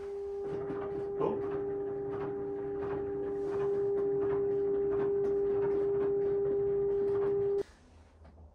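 Sine-wave control tones played from a waterproof speaker underwater to steer a sound-controlled DIY submarine: one steady tone, joined by a second, lower tone about a second in, both cutting off sharply near the end. Faint, evenly spaced ticks run beneath the tones.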